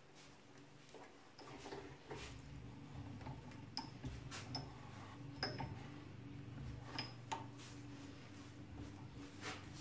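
Scattered faint clicks and light metallic taps, a few with a short high ping, as a wood lathe's tailstock is wound in and locked to hold a wooden blank between centres. A low steady hum comes in about a second in.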